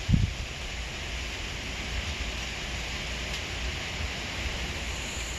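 Steady rushing noise of strong storm wind, with gusts buffeting the microphone as a low rumble and one low thump just after the start.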